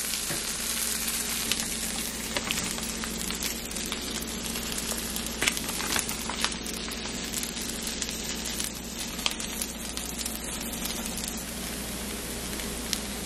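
Veggie burger patties sizzling in a nonstick frying pan: a steady frying hiss with scattered crackling pops.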